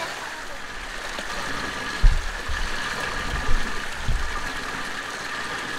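Water pouring from pipe outlets into a concrete trout raceway: a steady splashing rush. A few dull low thumps come about two to four seconds in, the first the loudest.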